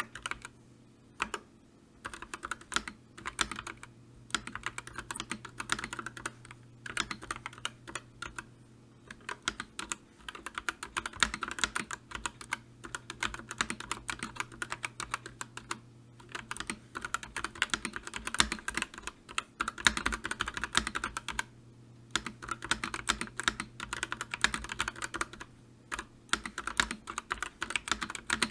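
Typing on a computer keyboard: rapid runs of key clicks broken by brief pauses every few seconds.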